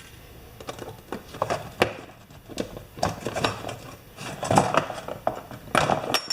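Small metal parts and hand tools clinking and knocking as they are handled on a workbench: a string of irregular sharp clicks and clatters.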